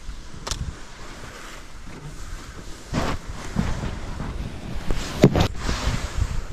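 Plastic sled dragged through snow close past the microphone: a rough scraping hiss of snow, with sharp knocks about three seconds in and, loudest, just after five seconds as the sled shoves through and sprays snow. Wind on the microphone throughout.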